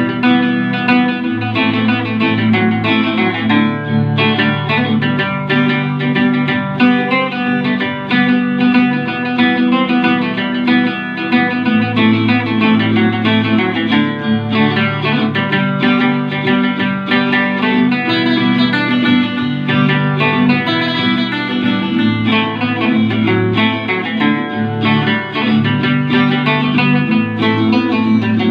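Takamine acoustic guitar played solo, picking out a melody over low bass notes in a continuous flow of plucked notes.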